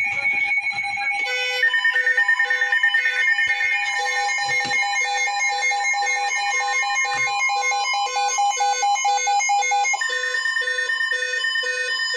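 Several emergency alert tones sounding at once from different devices, overlapping beeps and steady pitched alarm tones, with more joining about a second in and one dropping out near the end. This is an Environment Canada Alert Ready severe thunderstorm warning going off.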